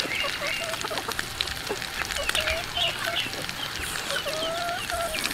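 Close-miked chewing and lip-smacking of a mouthful of food, with many small wet clicks, while poultry cluck in the background in short wavering calls, more often in the second half.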